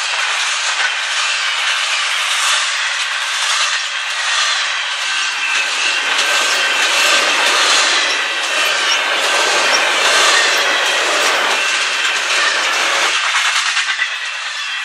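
Passing Canadian Pacific freight train of double-stack container well cars, its steel wheels rolling continuously on the rails, with faint steady high-pitched tones ringing through the noise. The sound grows fuller and deeper through the middle, then thins again near the end.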